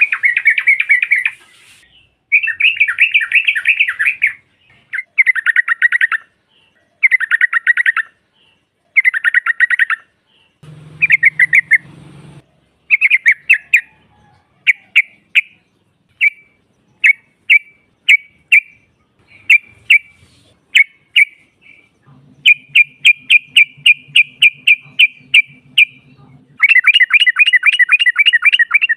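Yellow-vented bulbul (trucukan) calling: rapid chattering phrases of a second or two, repeated with short pauses, breaking into strings of quick single notes in the middle. The tags offer it as a female's call that draws males in.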